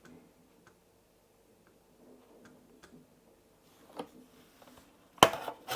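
Light clicks and taps from parts of a MacBook Air being handled during disassembly, with a sharper click about four seconds in and a loud clatter of clicks just after five seconds.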